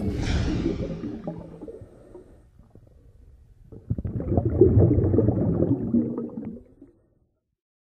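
Sound design for an animated logo sting: a swoosh that falls away over about two seconds, then, after a short lull, a low, gurgling rumble like water for about three seconds that stops abruptly.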